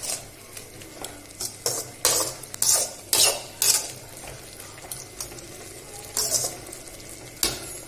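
A metal spoon stirring shredded cabbage in salted turmeric water in a metal pot, scraping against the pot in a run of irregular short strokes, with a lull of about two seconds midway.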